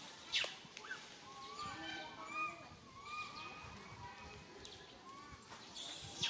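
Baby macaque crying, a string of short, high, arching calls, the distress cry of an infant left alone and calling for its mother. There is a sharp crackle shortly after the start and another near the end.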